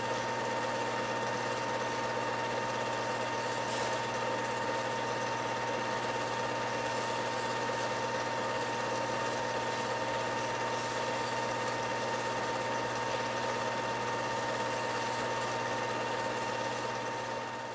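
8mm film projector running: a steady mechanical whir with a constant high hum over hiss, fading out near the end.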